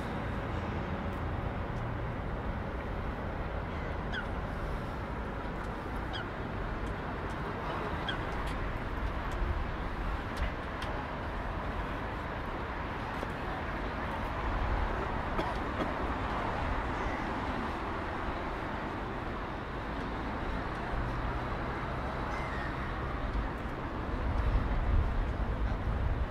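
Steady city street ambience with a few short bird calls over it.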